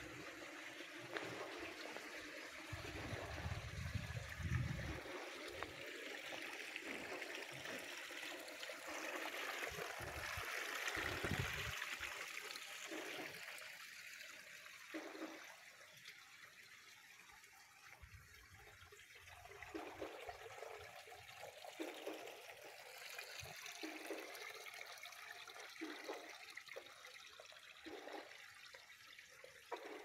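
A small garden stream trickling over rocks in a steady wash. It is louder in the first half and softer past the middle, with a couple of brief low rumbles early on.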